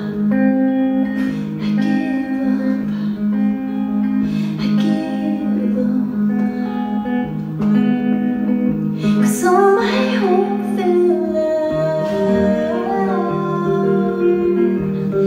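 Live music: clean electric guitar over sustained low looped notes, with a sung line that bends and wavers about two-thirds of the way through.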